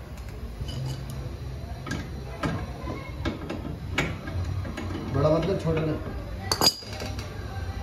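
Scattered metallic clinks and knocks of tools and metal parts being handled, about a dozen over several seconds, with a voice briefly in the background a little past the middle.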